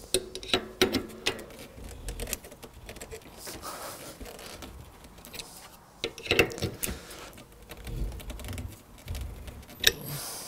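Irregular metallic clicking from a ratchet wrench and cassette lockring tool as a SRAM cassette's lockring is tightened clockwise onto the freehub, the clicks coming in bunches with each stroke of the wrench.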